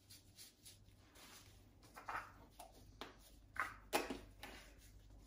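Faint kitchen handling sounds: a few soft rustles and light knocks, about two, three and a half and four seconds in, as a glass spice jar of dried thyme is handled and set down.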